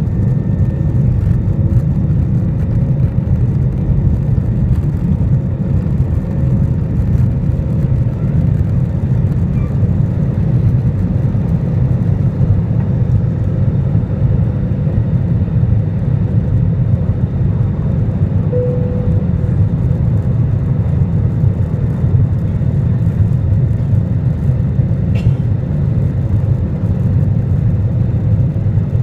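Airbus A320 jet engines at takeoff thrust, heard inside the cabin over the wing: a loud, steady low roar through the takeoff run, liftoff and initial climb.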